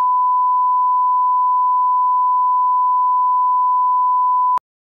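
1 kHz line-up test tone, the reference tone that runs with colour bars at the head of a tape: one steady, loud pure tone that cuts off suddenly near the end.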